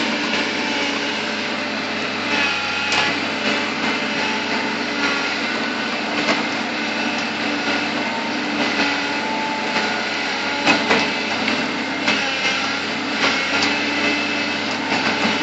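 Bulldozer's diesel engine running steadily, with irregular sharp knocks and clanks over it.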